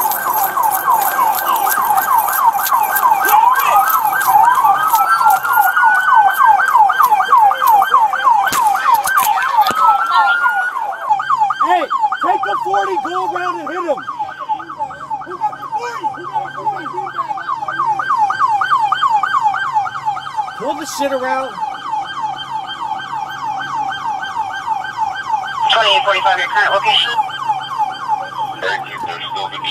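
Police car sirens in a fast yelp, sweeping rapidly up and down without a break. In the first ten seconds a few slower rising siren wails glide over it.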